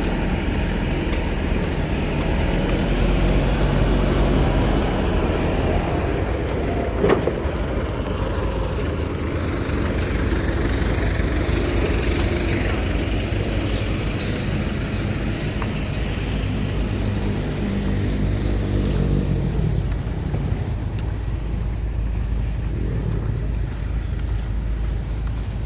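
Engines of heavy road-construction machinery and trucks running, with the engine note rising and falling as they work and move. A single sharp knock about seven seconds in.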